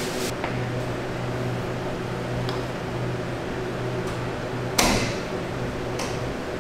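Steady hum of bakery machinery with a few light clicks and one loud knock about five seconds in.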